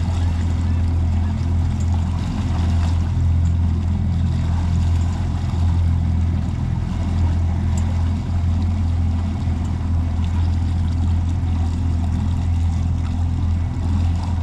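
Outboard engine of a Pursuit C 238 boat running steadily under way, a constant low drone with water rushing past the hull.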